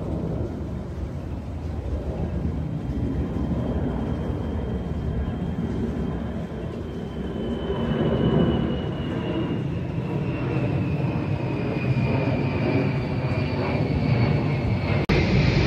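Jet noise of an Ilyushin Il-78 tanker's four turbofan engines as it flies overhead: a steady broad rush with a high whine that slowly falls in pitch, growing louder towards the end.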